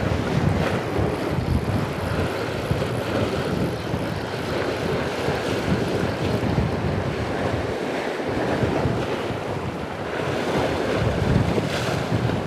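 Sea waves washing and breaking against shoreline rocks, with strong wind rumbling on the microphone.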